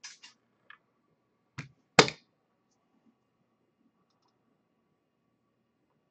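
A few light clicks, then two sharp knocks on a tabletop about half a second apart, the second much louder, as trading cards and objects are handled on the table.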